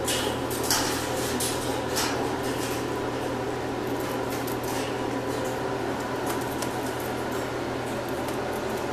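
A steady mechanical hum with a thin steady whine, as from a fan or ventilation unit, with a few light clicks and rattles, the clearest near the start and about two seconds in.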